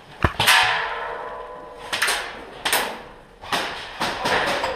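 A sharp click, then a loud bang with a metallic ring that fades over about a second, followed by several shorter knocks and rustling.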